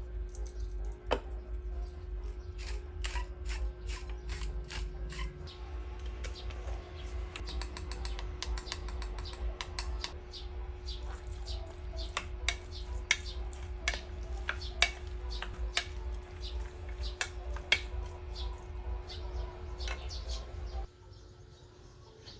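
Kitchen utensils and dishes clinking and knocking in quick irregular clicks during food preparation, over a steady low hum. The sound drops off suddenly near the end.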